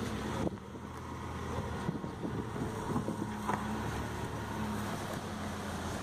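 Land Rover Discovery's engine running low and steady as the vehicle crawls slowly over a rough dirt track, with a few light knocks about half a second, two seconds and three and a half seconds in.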